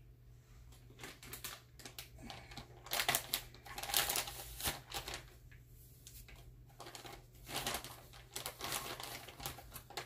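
Motorised cup turner spinning an epoxy-coated tumbler: a low steady hum, with two stretches of rapid, irregular clicking and rattling, the first about a second in and the second near the end.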